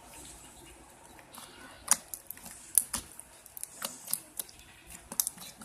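Clear slime being worked by hand, giving an irregular run of sharp sticky pops and clicks that starts about a second and a half in.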